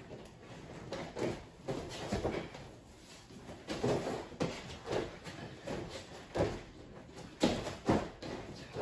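Irregular thuds and slaps of two people doing burpees on padded folding gym mats: hands and feet hitting the mats as they drop, kick back and land from jumps. The two loudest thumps come near the end.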